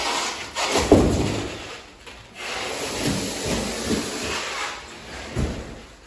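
A boxed washing machine being carried in and set down on a tile floor: a heavy thump about a second in, then a few seconds of cardboard scraping and shuffling.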